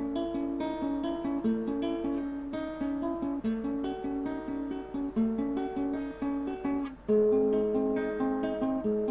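Acoustic guitar playing an intro, with the notes of each chord picked one after another in a steady pattern. There is a brief break and a chord change about seven seconds in.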